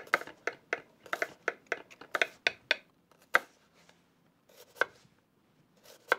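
Kitchen knife slicing an onion thinly on a cutting board: a quick run of sharp knife strokes on the board, about five a second, for the first three seconds, then a few single cuts spaced more than a second apart.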